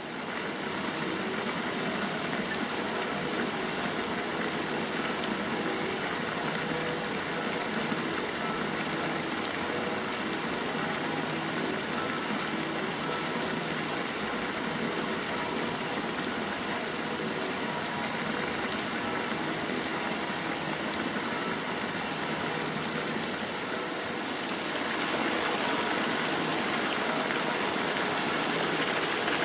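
Steady rushing of flowing water in a watermill's brook and headrace, getting a little louder and brighter about 25 seconds in.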